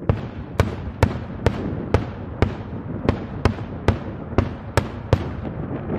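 Daytime fireworks: a steady string of sharp firework bangs, about two a second, each a short crack.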